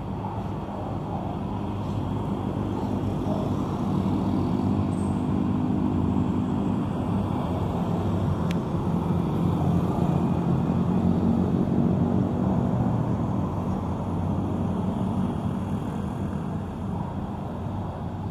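Road traffic on a city street: a motor vehicle's low engine hum grows louder over the first few seconds and fades again near the end.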